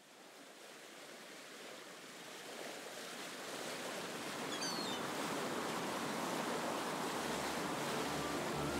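Sea waves and surf washing steadily, fading in from silence and swelling over the first few seconds. A few faint high chirps sound about halfway through, and low music comes in near the end.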